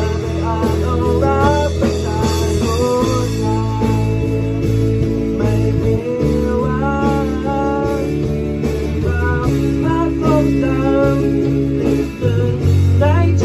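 A rock band playing live: electric guitars, electric bass and a drum kit, with a lead melody that bends in pitch over the chords.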